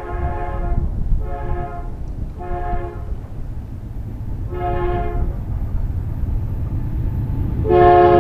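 BNSF freight locomotive horn sounding a series of chord blasts (the tail of one, then four more, the last starting near the end), over the steady low rumble of the train, which grows louder near the end.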